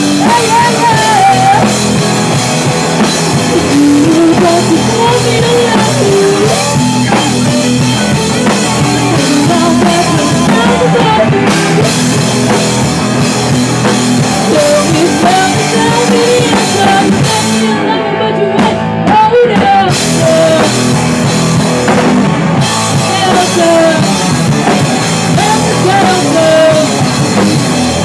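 Live rock band playing loud: a woman singing over electric guitar and a drum kit. The cymbals drop out for a couple of seconds about two-thirds of the way through.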